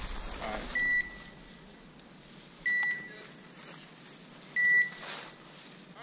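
A bird dog's beeper collar sounding three short, high beeps about two seconds apart: the point-mode signal that the setter is standing still on point.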